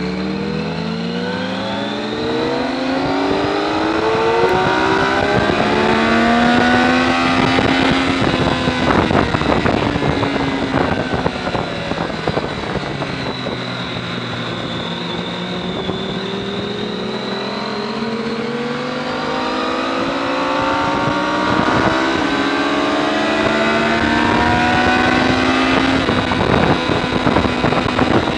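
Triumph sport bike engine heard from onboard, revving up through the gears with its pitch climbing and dropping at each upshift. It eases off about halfway, then pulls hard again, with wind noise on the microphone growing as speed builds.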